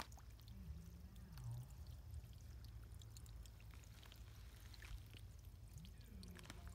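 Near silence: a faint low rumble with a few small scattered ticks.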